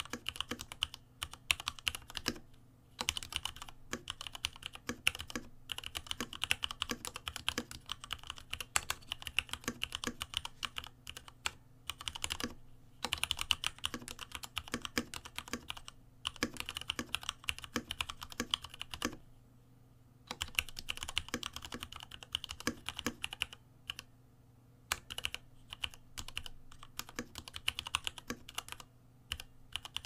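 Fast touch-typing on a Varmilo Summit mechanical keyboard: a dense run of key clacks with a few short pauses, the longest about twenty seconds in.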